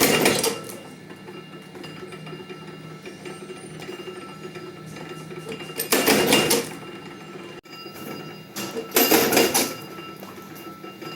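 Printing shop punching machine working: a steady motor hum with three short, loud mechanical strokes, one near the start, one about six seconds in and one about nine seconds in.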